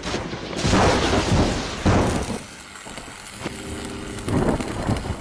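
Logo-intro sound effects: deep booming hits with a rumbling tail, one about a second in and another about two seconds in, a short held tone around three and a half seconds, and a further boom near the end.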